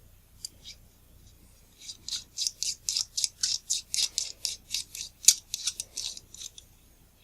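Quick, even scraping or rubbing strokes on a small part of a camera lens, about four or five a second for some five seconds, starting about two seconds in.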